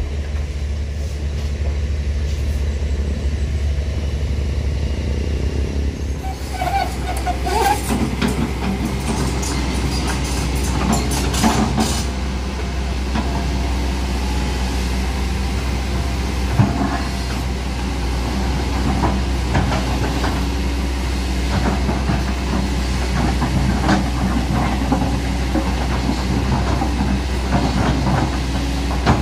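A heavy diesel engine runs steadily under everything: a truck at the start, then a Kobelco SK200 hydraulic excavator working loose gravel. From about six seconds in there is irregular clanking and scraping of steel on gravel and stone.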